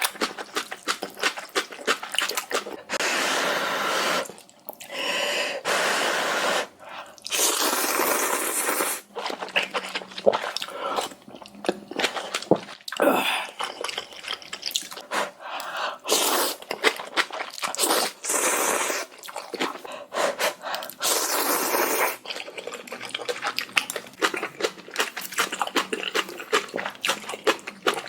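Close-miked eating of spicy ramen noodles: several long slurps of a second or so, between wet chewing and smacking mouth clicks.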